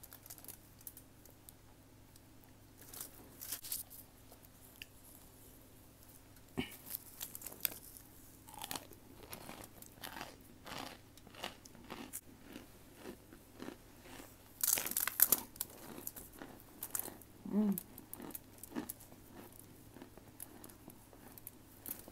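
Crunching and chewing of chalky cornstarch chunks, with crisp crackles at irregular intervals from about three seconds in and the loudest run a little past two-thirds through.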